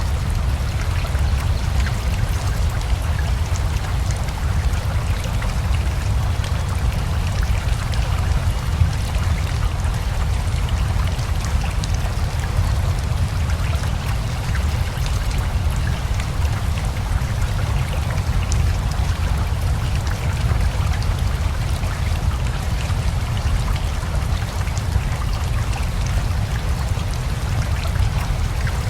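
Steady rain falling together with a flowing river: rushing water with a deep, even rumble and a patter of drops.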